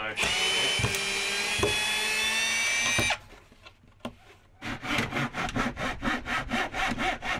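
Cordless drill driving a screw into plywood for about three seconds, its motor whine rising slightly, then stopping abruptly. After a short pause, a hand saw cuts wood in quick, even back-and-forth strokes.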